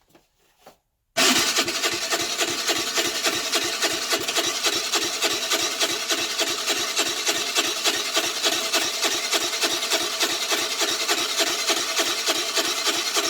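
Baotian Tanco 50cc four-stroke scooter engine being cranked by its electric starter, kicking in suddenly about a second in and churning in a steady, fast, even rhythm without catching. The uploader blames a flooded engine with a wet spark plug and a fouled carburettor for the no-start.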